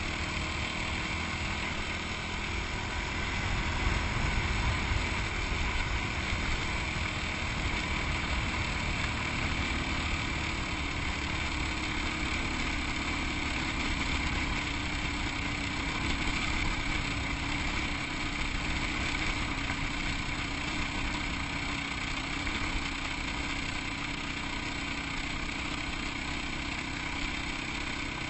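Yamaha WR250X's 250 cc single-cylinder four-stroke engine running steadily, a little louder about four seconds in.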